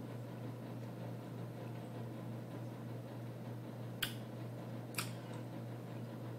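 Steady low hum of room background noise, with two short sharp clicks about a second apart about two-thirds of the way through.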